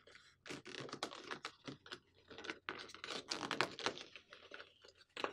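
Paper being folded and creased by hand into a paper boat: irregular rustling and scraping strokes as fingers press and run along the folds.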